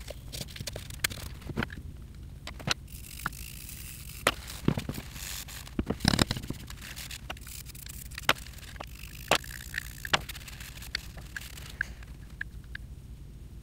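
Scattered small metal clicks, taps and scrapes as the aluminium cross slide of a Taig mini lathe is worked loose, lifted off the bed and handled, with a cluster of louder knocks about six seconds in.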